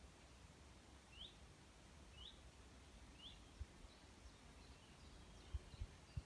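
Faint bird calls: a short rising chirp repeated about once a second, then softer scattered chirps, over quiet forest ambience. A few low thumps near the end.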